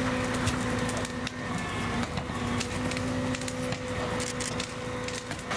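Burning wooden house crackling and popping irregularly over the steady drone of a running fire engine.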